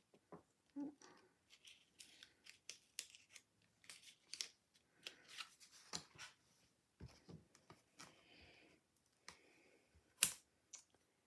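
Faint, scattered rustles and short clicks of cardstock pieces and small foam adhesive squares being handled and pressed on a tabletop, with one sharper click about ten seconds in.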